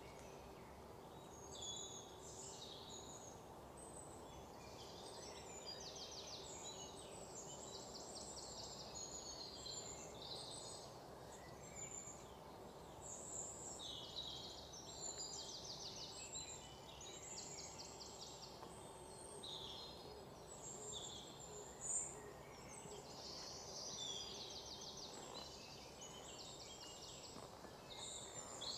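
Many small birds chirping and trilling over a faint, steady background hum, with one sharp click about two-thirds of the way through.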